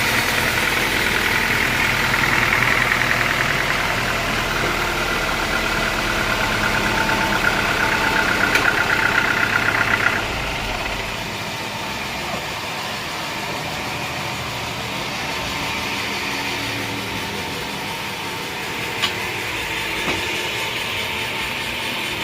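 A sawmill engine running steadily, with a higher-pitched whine over it that stops abruptly about ten seconds in; the engine then runs on a little more quietly.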